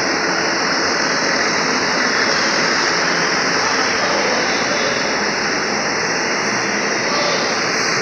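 Steady loud machinery noise in a ferry's enclosed vehicle deck: the ship's engines and ventilation running without a break.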